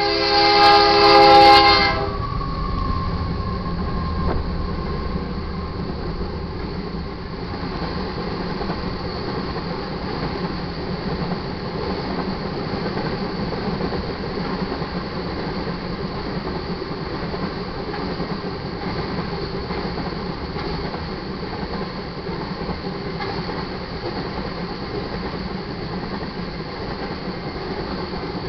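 GE AC44CW locomotive's air horn blowing loud for about two seconds as the lead engine reaches the crossing, cutting off sharply. Then the freight train rolls past with a steady rumble of wheels on rail as a long string of crude oil tank cars goes by.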